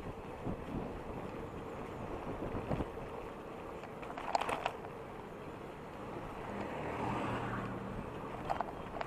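Wind rushing over the microphone and road noise while riding an e-bike, with a motor vehicle passing about seven seconds in and a couple of brief rattles.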